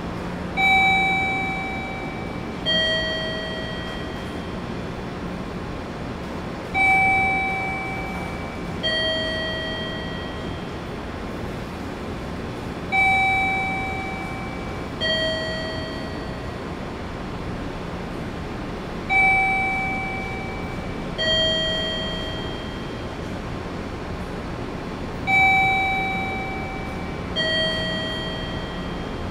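Electronic two-tone station chime: a higher note and then a lower one about two seconds later, each fading out, the pair repeating five times about every six seconds over a steady background hum.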